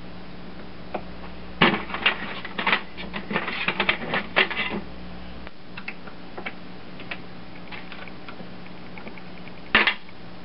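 Metal lathe running with a steady hum while turning a part. Starting about a second and a half in, a rapid clatter of metallic clicks lasts about three seconds, and there is one more sharp click near the end.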